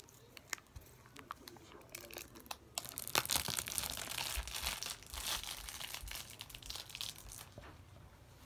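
Crinkly wrapping being peeled off by hand. A few light handling clicks come first, then about four and a half seconds of continuous crinkling and tearing, which dies away near the end.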